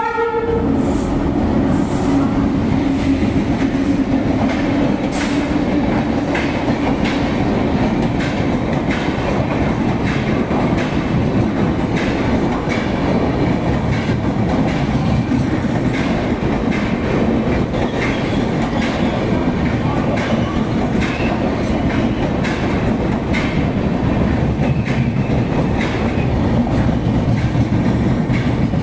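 Express train running through a station at speed. A horn blast ends just at the start, then the electric locomotive and a long rake of LHB passenger coaches rush past with a steady rumble and repeated clicks of wheels over rail joints.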